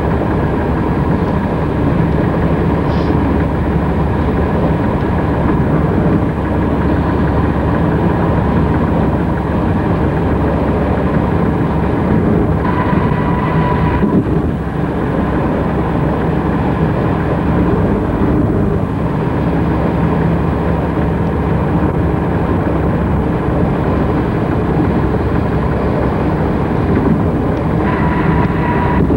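Steady road noise inside a car travelling at freeway speed: tyre and wind noise with the engine's drone. A brief higher whine comes in twice, about halfway through and near the end.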